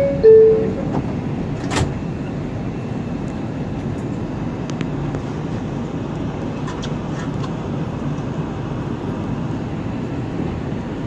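R142 subway car's two-tone door chime, the second tone lower, followed about two seconds in by a sharp knock as the doors close. Then the steady rumble and hiss of the elevated train.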